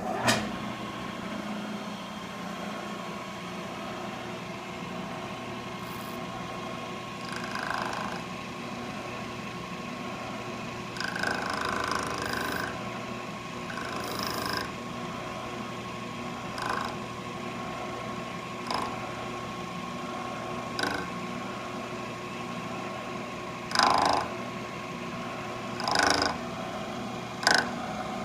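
Milling machine running steadily with a constant hum, while the cutter works out a bulldozer cylinder head's valve seat. Brief louder scraping bursts come every few seconds as the tool bites into the seat.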